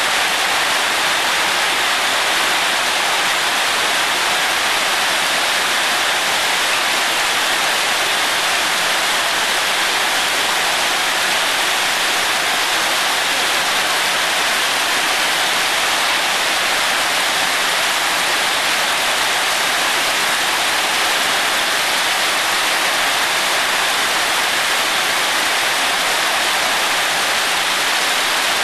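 Heavy rain falling, a dense, even hiss that holds steady throughout.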